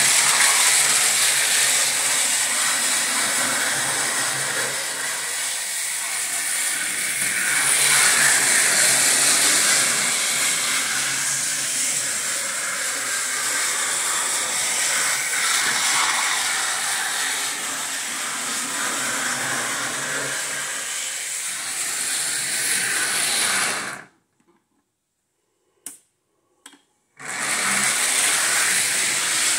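Lionel three-rail model trains, a Rock Island diesel switcher among them, running on the layout: a steady whir of electric motors and wheels on metal track, with a strong hiss. About 24 s in the sound cuts out for about three seconds, with two sharp clicks in the gap, then comes back.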